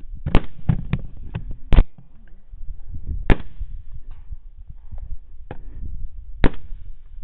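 A string of rifle shots fired at hogs: four loud, close shots, about a third of a second in, near two seconds, just past three seconds and past six seconds, with about five fainter shots between them.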